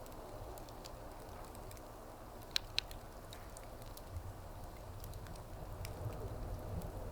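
Wood fire burning with a low steady rumble and scattered small crackles. Two sharp pops come close together about two and a half seconds in.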